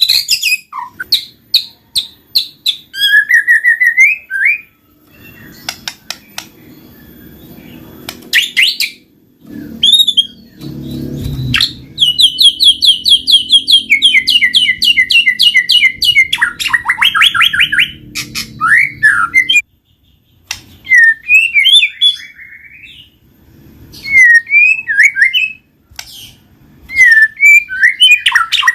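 White-rumped shama (murai batu) singing loudly: varied whistled phrases broken by short pauses, with a long run of fast repeated notes in the middle.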